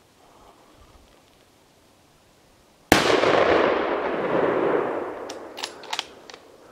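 A single hunting-rifle shot about three seconds in, a sharp crack followed by a long rolling echo that fades over a few seconds. A few short sharp clicks follow near the end.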